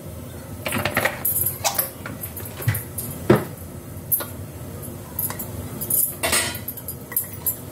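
Metal cookware and utensils clinking and knocking every second or so, with the sharpest knock about three seconds in.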